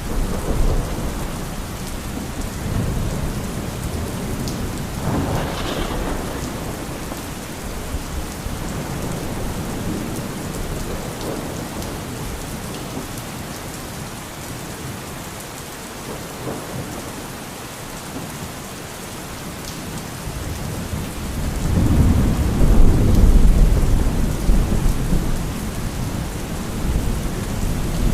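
Thunderstorm: steady rain falling with rolling thunder. A sharper thunderclap comes about five seconds in. Near the end, a loud, deep rumble of thunder swells up and is the loudest part.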